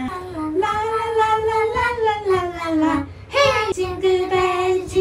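A high voice singing a wordless melody in long held notes that slide from pitch to pitch, with a brief break about three seconds in before a sharp higher note that drops and holds.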